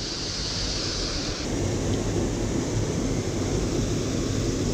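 Steady rushing of a small waterfall pouring out of a concrete drain, a little bit loud. Its higher hiss drops slightly about a second and a half in.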